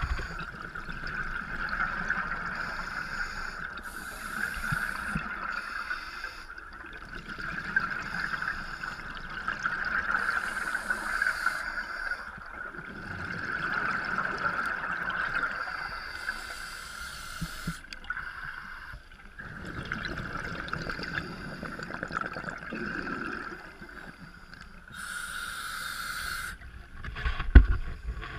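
Scuba regulator breathing heard underwater, muffled through a camera's waterproof housing: bursts of exhaled bubbles every few seconds over a steady high hum. A couple of low knocks near the end.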